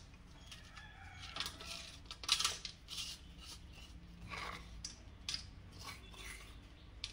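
Faint, scattered light clicks and scrapes of utensils being handled around a stone mortar, a handful of short taps spread over several seconds between rounds of pounding.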